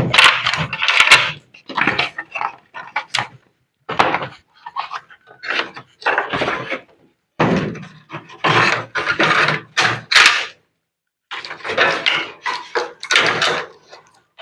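Irregular knocking, scraping and rattling of washing-machine parts being handled and worked on during disassembly, in bursts with a few sharp clicks and short pauses between them.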